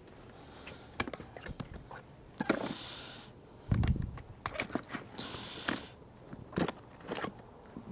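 Metal hand tools clinking and knocking together while someone rummages for a 9 mm wrench, with two short rustling scrapes in between.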